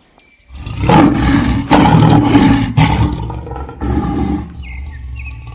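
Big cats roaring in a fight: a run of loud roars starts about half a second in and eases off after about four seconds.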